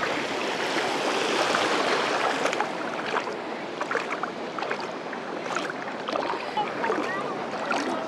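Feet wading through shallow seawater thick with algae: water sloshing and splashing with each step over a steady wash of small waves.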